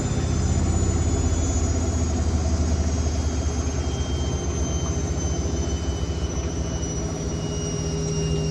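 Hotpoint WML540 Aquarius washing machine running its final spin with the door open: a steady rumble from the spinning drum with a high motor whine that falls slowly in pitch.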